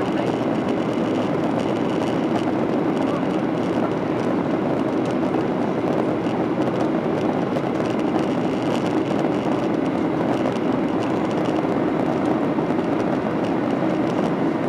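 Boeing 737-800's CFM56-7B jet engines running at steady thrust: an even, unchanging rush of engine and air noise with a faint high whine.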